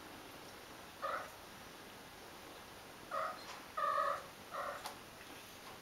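Scottish cat mewing in short calls: once about a second in, then three more in quick succession a couple of seconds later.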